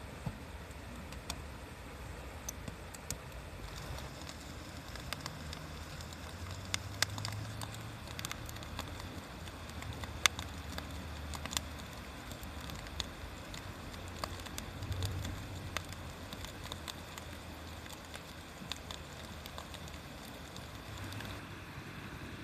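Wood fire crackling, with irregular sharp pops and snaps, a few of them loud, over a steady low rumble.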